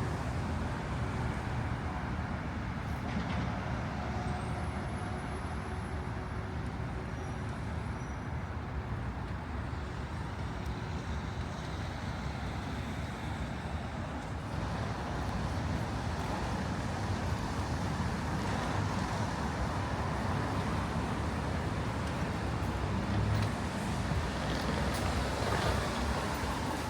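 Steady rumble of vehicle engines and traffic noise, with no distinct single events.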